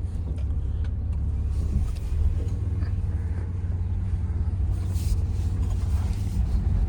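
1994 Chevrolet S10 Blazer's 4.3-litre V6 running under way with road noise, a steady low drone. The engine has a freshly rebuilt intake and its timing set.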